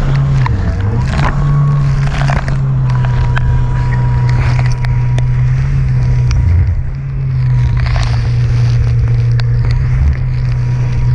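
Jetski engine running steadily at speed, easing briefly about seven seconds in, with water splashing against the hull as it crosses rough chop.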